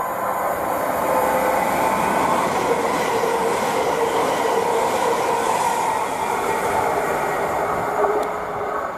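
Greater Anglia electric multiple unit running past a station platform: a steady, loud rush of wheel-on-rail noise with a humming tone, with a single sharp clack about eight seconds in, then easing off at the end.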